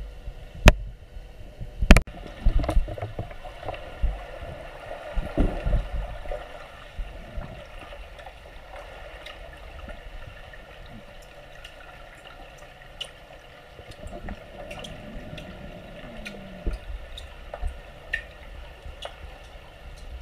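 Underwater pool sound: muffled gurgling of water and bubbles, with two sharp clicks near the start, a cluster of low thumps over the next few seconds and scattered small ticks.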